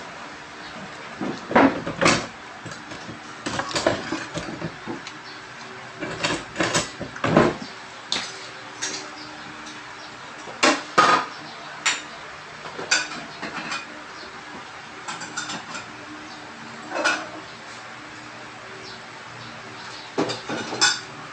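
Pots, dishes and utensils being handled and set down at a kitchen stove and counter: irregular clanks and knocks, some in quick clusters, over a faint steady hum.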